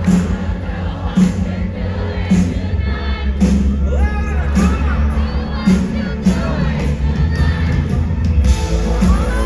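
Live band performing a pop-rock song: a steady drum beat with singing over it.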